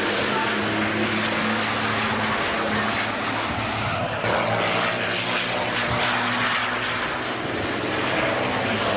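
Diesel race truck engines running hard as several trucks pass close by one after another; the engine note changes about four seconds in as a different truck comes through.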